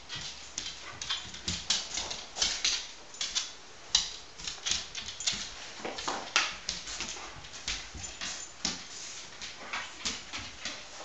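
A dog's claws clicking on a hard floor as it moves about searching, in quick irregular taps several times a second.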